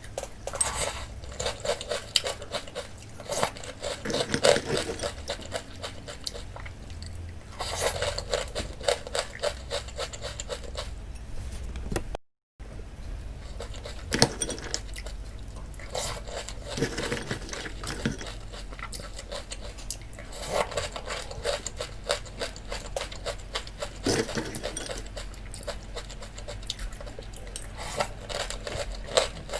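Someone eating cereal: a spoon clinking and scraping against the bowl and crunchy chewing, a dense run of small irregular clicks and crackles, with a brief cut to silence about twelve seconds in.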